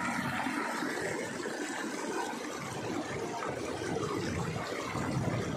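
Water gushing out of a concrete culvert pipe into a shallow canal channel: a steady rushing, splashing noise.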